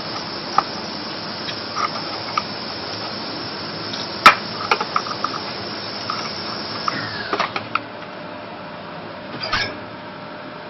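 Parts of a coffee machine being handled during disassembly: scattered clicks and knocks, the sharpest about four seconds in and a small cluster a few seconds later, over a steady background hiss.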